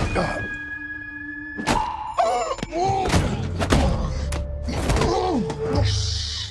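Staged fight hits: several thuds and punches at irregular intervals, the first right at the start, over a film score with held tones. Near the end a woman gives a brief shushing hiss.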